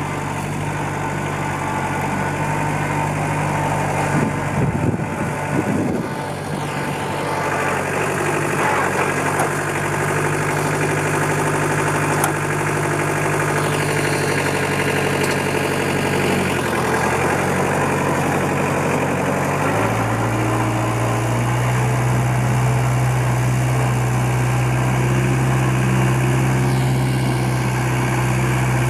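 Daedong L3502 compact tractor's diesel engine running steadily. Its engine speed changes a few times, settling to a lower, slightly louder note about two-thirds of the way through.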